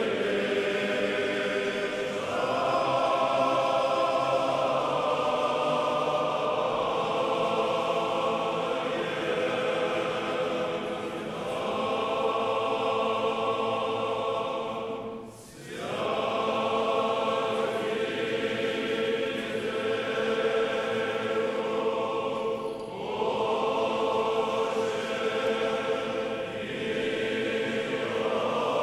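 Church choir singing Orthodox liturgical chant unaccompanied, in sustained chords that change every few seconds, with a brief break about halfway through.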